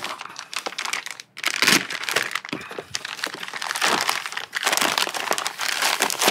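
Clear plastic packaging bag crinkling irregularly as it is slit with a utility knife and pulled open to take out the contents.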